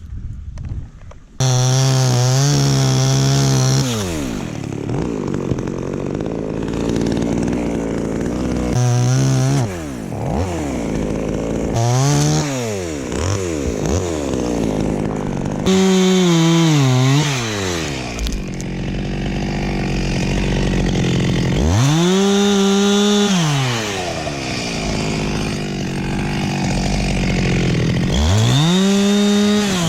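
A chainsaw opens up about a second in, then revs high and drops back to idle again and again as it cuts tamarind limbs into firewood pieces.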